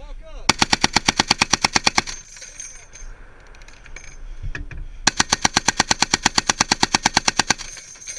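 An M2 .50 caliber machine gun firing two bursts of rapid, evenly spaced shots, the second burst longer than the first.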